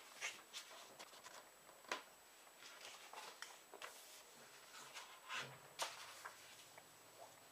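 Faint rustling and crinkling of a sheet of paper as it is folded and smoothed flat by hand, with scattered light taps. There is a sharper snap about two seconds in and another near six seconds.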